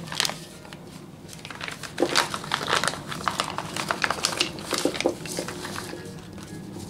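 Clear plastic bag crinkling as it is handled, with a few light knocks in among the crinkles.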